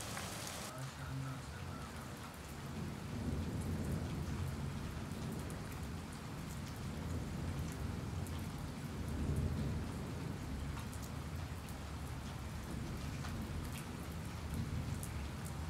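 Steady heavy rain falling on a concrete rooftop and courtyard, with scattered ticks of drops. A low rumble swells about three seconds in and again around nine seconds.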